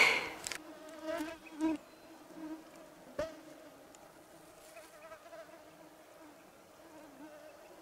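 Mosquitoes buzzing close by: a steady, wavering insect whine. There is one sharp click about three seconds in.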